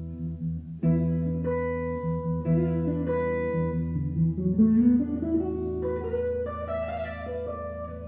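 Solo jazz guitar played on a sunburst archtop hollow-body guitar: chords struck about a second in over held bass notes, then a rising line of notes through the second half.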